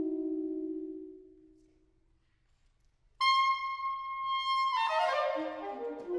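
Saxophone quartet playing: a held low note fades away into a short silence, then a loud high note enters sharply about three seconds in, is held, and breaks into a rush of fast notes from several saxophones running downward.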